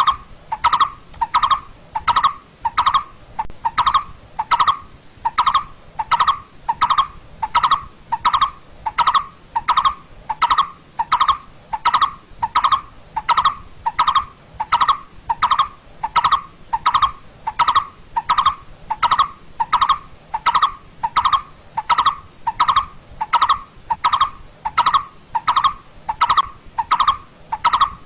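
Coppersmith barbet calling: a long, steady series of identical low "tuk" notes, about two a second, at an even pace.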